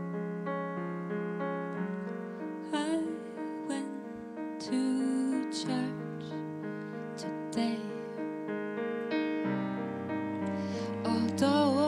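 Slow live song on a Yamaha digital piano, with a woman singing from about three seconds in. A bowed cello holds long low notes underneath.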